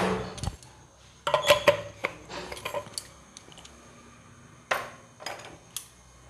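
Kitchen clatter: a string of sharp knocks and clinks of utensils and containers being handled and set down on hard surfaces, loudest about a second and a half in.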